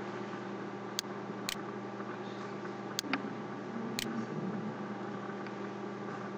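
Computer mouse buttons clicking a few times, sharp isolated ticks, some in press-and-release pairs about half a second apart, over a steady low hum and hiss.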